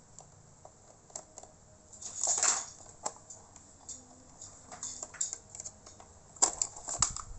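Small screwdriver and screws clicking and scraping against a laptop's plastic case as it is unscrewed and taken apart: scattered light ticks, a louder scrape about two seconds in, and a quick run of clicks near the end.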